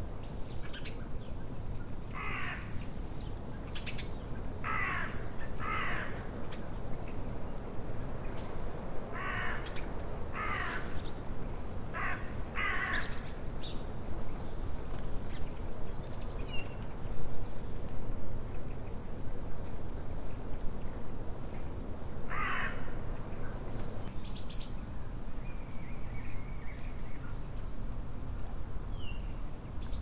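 Crows cawing: about eight harsh caws, several in pairs, through the first half and once more about two-thirds through. Small songbirds give short high chirps throughout over a steady low background noise.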